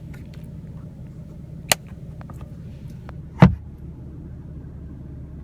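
Car sun visor being handled: a sharp click, then a louder thump about halfway through, as the vanity mirror cover snaps shut and the visor is flipped up. A steady low hum runs underneath.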